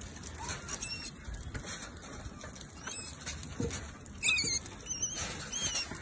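Rat giving several short, high-pitched squeals as terriers seize it: distress calls of a caught rat.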